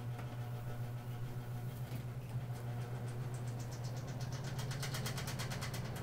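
1994 Holmes Slimline 20-inch box fan running with a steady motor hum and a fast, even rattle that grows stronger about halfway through. The rattle comes from the fan's loose housing and its warped blade.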